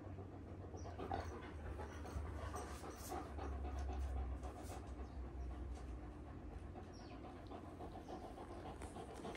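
Young Kangal dogs panting as they play-wrestle, with scattered small clicks and scuffles of their mouthing and a low rumble underneath.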